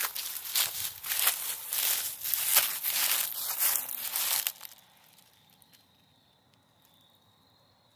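Footsteps crunching and crackling through dry fallen leaves, a rapid irregular run of steps that stops about four and a half seconds in. After that, only a faint steady high tone remains.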